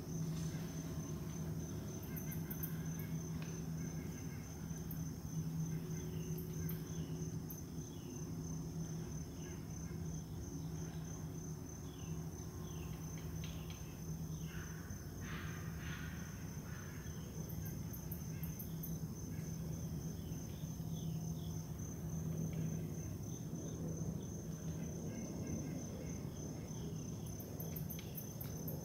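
Insects trill steadily at a high pitch, with scattered short chirps and a low steady hum underneath.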